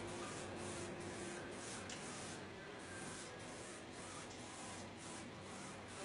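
Paintbrush scrubbing oil paint onto canvas: a faint, soft swishing repeated about three strokes a second.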